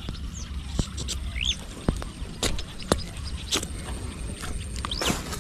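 About six sharp clicks and taps at irregular intervals, with a bird chirping a few times, once as a short rising note.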